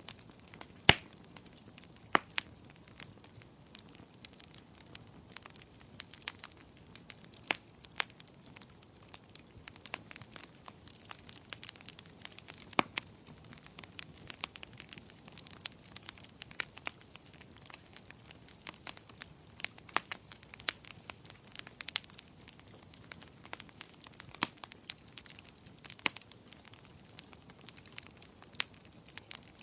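Wood fire crackling and popping, irregular sharp snaps over a soft low hiss of burning, with one loud pop about a second in.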